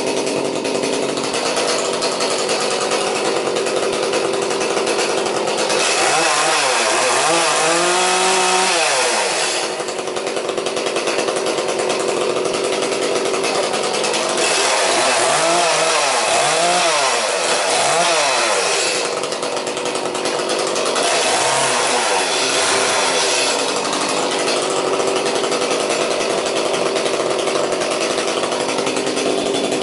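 Petrol two-stroke chainsaw running steadily and revved up and down several times.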